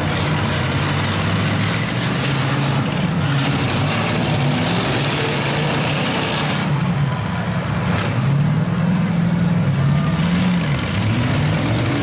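Several pickup trucks' engines revving up and down, their pitches rising and falling repeatedly over a loud rushing roar that drops away about two-thirds of the way through.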